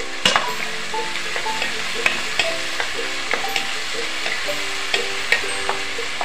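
Onions, tomatoes, green chillies and curry leaves sizzling in oil in a non-stick pan as they are stirred, with the stirring spoon knocking and scraping against the pan in a run of sharp clicks.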